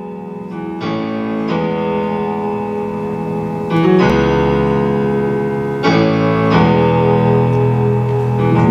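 Electric keyboard playing a slow piano introduction of sustained chords that change every second or two, with a deep bass note coming in about four seconds in.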